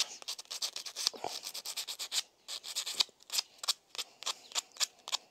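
E-bike disc brake pad rubbed back and forth on sandpaper in quick scratchy strokes, several a second, roughing the pad face and chamfering its edges to cure squealing brakes.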